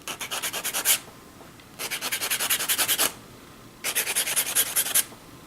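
Sandpaper rubbed with quick back-and-forth strokes over plastic kit parts to smooth off leftover moulding nubs, in three short bouts.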